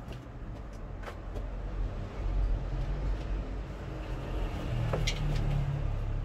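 Low steady rumble of a motor vehicle, growing louder about two seconds in, with a few faint light clicks.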